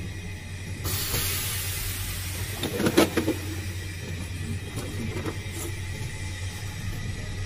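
Laser longitudinal seam welding machine running with a steady low hum; a hiss comes on about a second in and carries on, and a brief clatter, the loudest sound, comes about three seconds in.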